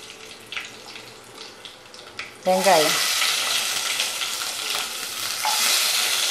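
Hot oil with tempering spices sizzling quietly in an aluminium pressure cooker, with faint crackles; about two and a half seconds in, sliced small onions (shallots) go into the oil and it breaks into a loud, steady sizzle.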